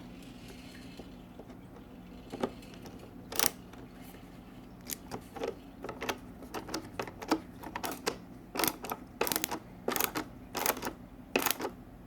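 Irregular sharp clicks and taps of a screwdriver and the AMC Navigenio's plastic housing parts as the screws are put back in, thickening to a quick clatter of clicks in the second half.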